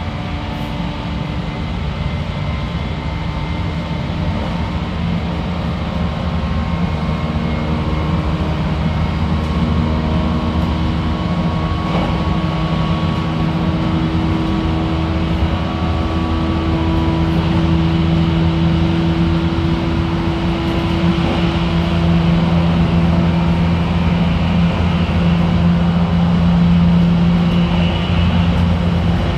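Running sound inside a JR Kyushu 813 series EMU motor car: steady hum of the traction motors and their drive over the rumble of wheels on rail. The hum's tones edge slowly upward in pitch and the whole sound grows a little louder as the train gathers speed.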